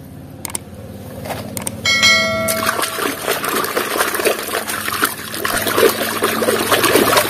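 Water sloshing and splashing as a hand scrubs a plastic toy vehicle in a basin of muddy water. About two seconds in, a short ringing bell chime sounds.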